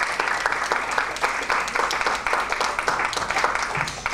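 Audience applauding, a dense patter of many hands clapping that begins to die away near the end.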